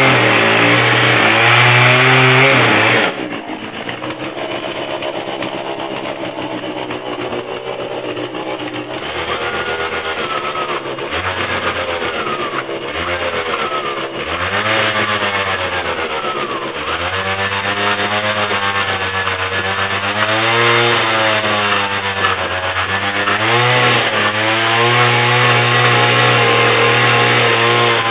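Husqvarna 240 two-stroke chainsaw fitted with a 12-inch carving bar, cutting into wood for the first three seconds. It then runs with the throttle repeatedly opened and eased off, its engine pitch rising and falling.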